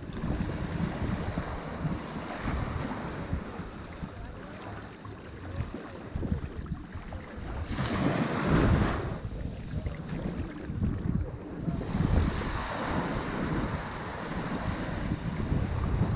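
Ocean waves breaking on a shore, a steady wash of surf that swells and ebbs, with the biggest wave crashing about halfway through. Some wind buffeting on the microphone.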